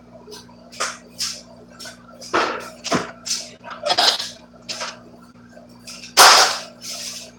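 Irregular knocks, bumps and scuffs, about a dozen in all, the loudest a sharp hit about six seconds in, over a steady low hum.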